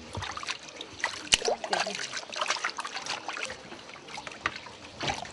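Hands kneading and squeezing a soft lump of fresh dairy in a plastic basin of cold water, with irregular splashing and dripping as it is washed.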